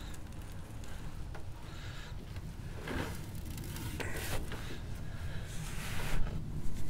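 Hands working dry rub into a raw beef brisket and lifting and shifting it on a metal sheet pan: soft rubbing and rustling handling noises, with a few short hissing rustles in the second half, over a steady low rumble.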